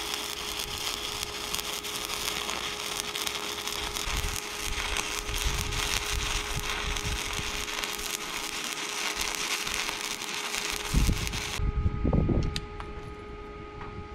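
Stick (shielded metal arc) welding: the electrode's arc crackles steadily while a bead is laid on steel plate, then cuts off about three-quarters of the way through. A few knocks follow after the arc stops.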